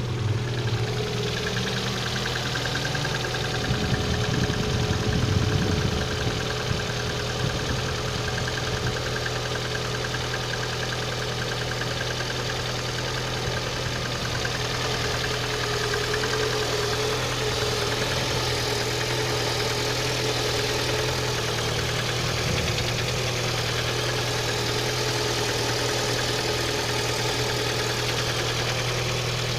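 VAZ-11194 (Lada 1.4-litre sixteen-valve four-cylinder) engine idling steadily with a knock in it, swelling briefly about four seconds in.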